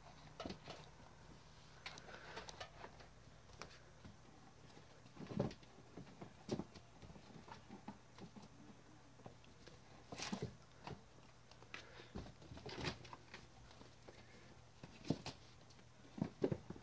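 Young kittens scrambling and pawing over books, paper and a cardboard box: light taps, scratches and rustles at irregular intervals, over a faint steady low hum.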